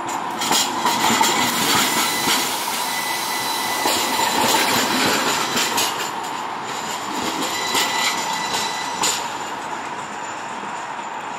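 A low-floor electric streetcar running past on its rails, with scattered clicks from the wheels and a steady high tone over the rolling noise. It is loudest in the first half and eases off as the car draws away.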